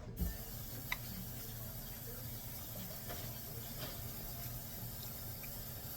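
Steady faint hiss of background noise, with a light click about a second in.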